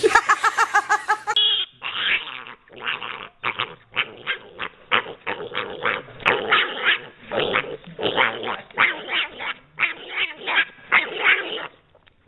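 A dog gives a short, high whine for the first second or so. Then a small pet pig calls over and over in short, rapid bursts, several a second, in runs with brief pauses.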